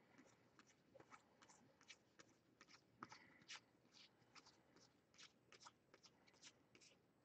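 Very faint, quick ticks and rustles of baseball trading cards being thumbed through one by one, a few every second.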